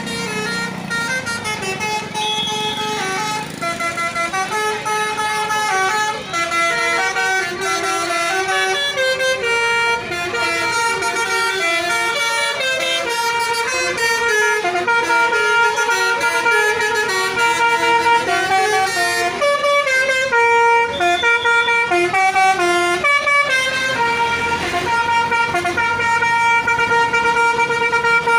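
Indonesian bus telolet horn, a multi-tone "basuri" air horn, playing a loud, continuous tune: several horn tones sound together and step up and down in pitch.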